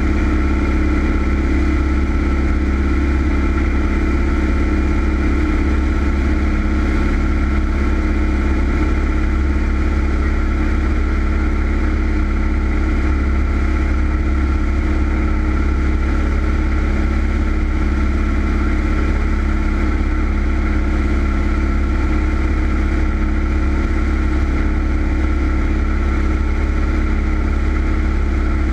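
Single-engine Cessna's piston engine and two-bladed propeller running steadily in flight: a constant drone that does not change pitch or loudness.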